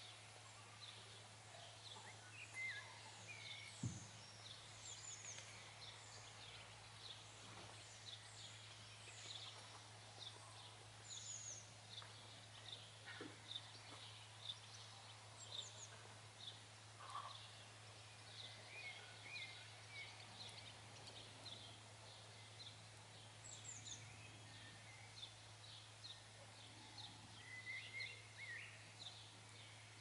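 Faint birdsong: several small birds chirping and trilling in quick, high notes, over a steady low hum. A single low thump about four seconds in.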